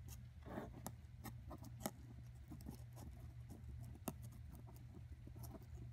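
Faint, irregular small clicks and taps of small objects being handled, over a low steady hum.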